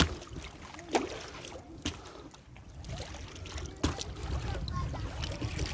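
Paddles working the water from an inflatable kayak, with four sharp paddle strikes over the first four seconds against a low steady rumble.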